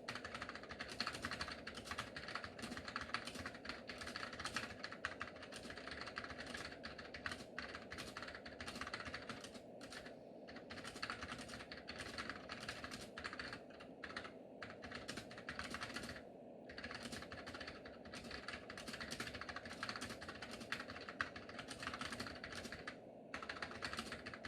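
Typing on a Chicony 5191 keyboard with tactile Mitsumi minimech (KLT) switches and dye-sub PBT keycaps: a dense, continuous run of keystrokes with a few brief pauses.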